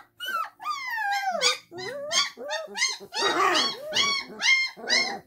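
Three-week-old Great Dane puppies whining and yipping in a quick series of high, mostly falling cries, about two a second, with a rougher, noisier cry a little past the middle. Play vocalising as the puppies mouth and tussle with each other.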